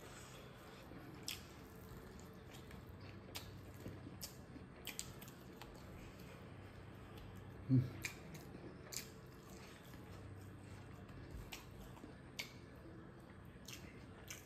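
Close-up mouth sounds of a person chewing rice and smoked pork, with scattered soft wet clicks and smacks, and a brief low hum about eight seconds in.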